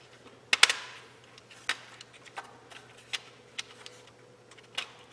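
Plastic and metal parts of a TIPM (totally integrated power module) being handled and fitted together: a sharp double click about half a second in, then scattered lighter clicks and taps.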